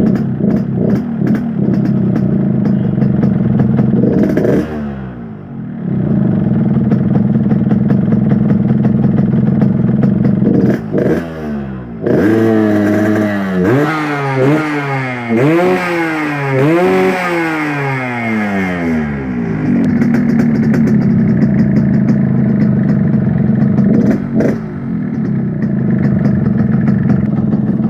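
Yamaha RX-King's two-stroke single-cylinder engine idling, blipped once about four seconds in, then revved up and down several times in quick succession for about seven seconds before settling back to a steady idle.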